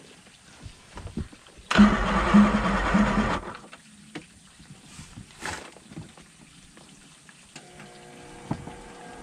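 1999 Evinrude Ficht 150 V6 two-stroke outboard cranked by its electric starter for about a second and a half, turning over with a rhythmic pulse but not catching. The owner thinks the battery has run low.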